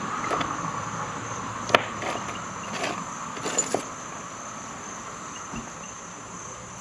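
Insects chirring steadily in a high, unbroken drone, with a few light clicks and rattles of small sewing notions (buttons, spools) being handled in a drawer; one sharper click comes a little under two seconds in.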